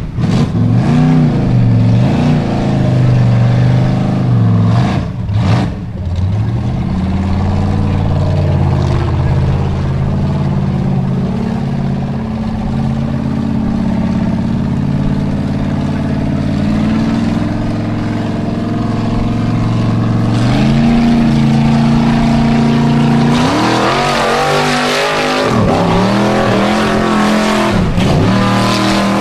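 Formula Offroad buggy engine revving hard as the buggy climbs a steep dirt slope on paddle tyres. The revs swing up and down over and over, and the sound turns harsher, with fast rev swings, in the last few seconds.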